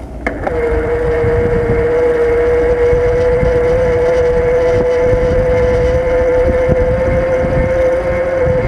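Bicycle on the move: wind rumble on the microphone with a steady mechanical whine that sets in about half a second in, after a click, and cuts off at the end.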